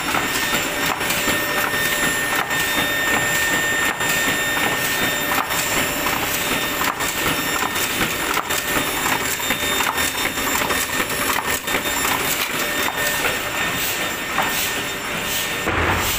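Heidelberg GTO 52 sheet-fed offset printing press running at speed: a steady mechanical clatter of fast, even clicks with a thin high whine over it.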